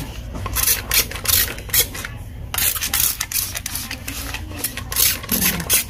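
Irregular rustling and scraping handling noises, several short strokes a second.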